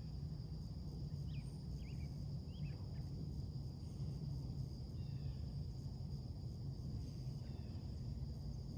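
Faint bird chirps, a quick run of short downward-sweeping notes in the first few seconds and a couple more later, over a steady high insect drone and a steady low rumble.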